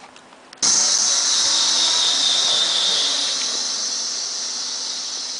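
A loud, steady, high-pitched hiss that starts suddenly about half a second in and slowly grows weaker.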